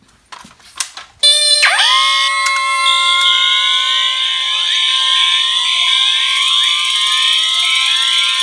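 A few sharp clicks, then about a second in a large set of fire alarm notification devices starts sounding together. It is a loud, dense mix of steady alarm tones, pulsing horns and repeated rising electronic sweeps.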